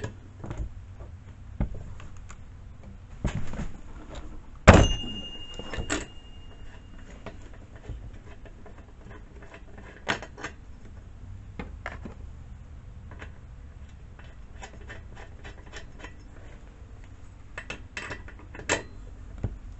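Hand tools and small metal parts clicking and clinking as a chainsaw's spark plug is changed, with one loud metallic clank about five seconds in that rings on briefly.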